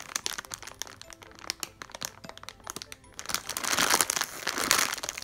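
Clear plastic packaging crinkling as a large slow-rise foam squishy is squeezed through the bag. Light crackling at first, then a louder rush of crinkling about three and a half seconds in as it is squeezed hard.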